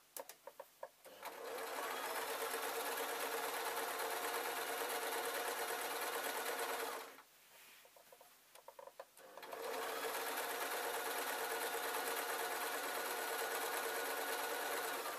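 Domestic sewing machine stitching through two layers of fabric in two steady runs of about six seconds each, stopping for a couple of seconds in between.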